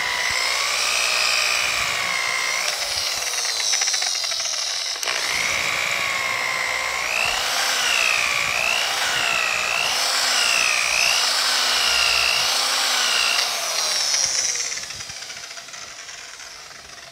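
Electric rotary polisher with a foam pad buffing compound on a painted truck door. Its motor whine wavers up and down in pitch as the pad is pressed and moved. It is switched off and winds down near the end.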